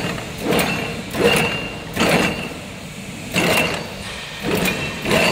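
Reverse-twist barbed wire making machine running in manual mode: its gears and twisting mechanism clatter in a repeating cycle, about one burst of clanks every second, many with a short high metallic ring.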